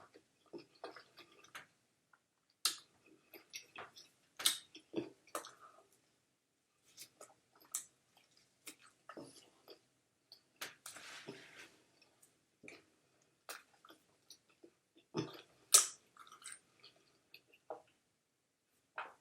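Close-up mouth sounds of a toothless person chewing food with her gums: irregular wet smacks and clicks separated by short pauses, with a longer noisy stretch about eleven seconds in.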